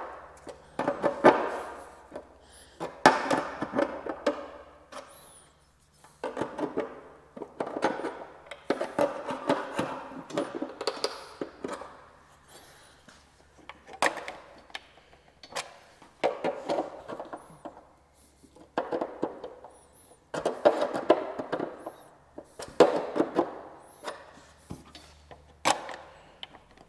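Repeated bursts of quick tapping on the sheet steel of a 1948 Plymouth fender as a hand tool works the flange around the recessed gas-cap pocket. Each burst lasts a second or two, with short pauses between.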